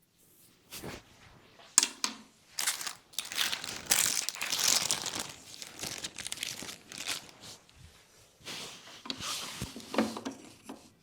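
Hands rubbing and scrubbing through hair on the scalp during a head massage: a dry, crackly scratching in uneven bursts, strongest in the middle and again near the end.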